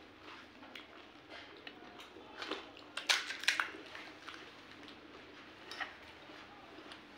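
Close-up eating sounds: a person chewing pani puri, with short crisp crunches and wet mouth clicks, the loudest cluster of crunches about three seconds in.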